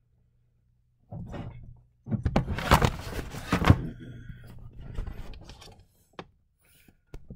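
Handling noise from the recording camera being picked up and moved around on a desk: rustling and scraping with a run of knocks and thunks, loudest about two to four seconds in, then a few small clicks.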